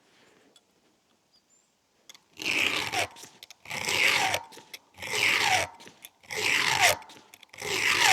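A round file stroking across a chainsaw chain's cutter teeth to sharpen it: about five rasping strokes, a little over a second apart, starting about two seconds in.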